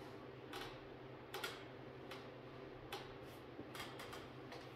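Faint, irregular clicks and creaks from a pull-up rack and resistance band as a man does band-assisted pull-ups, about nine light ticks spread unevenly through the stretch over a low steady hum.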